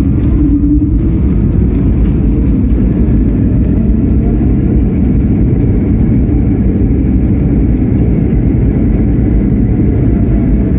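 Airbus A220-300 cabin noise: a steady, loud, low rumble of jet engines and rushing airflow, with no distinct events.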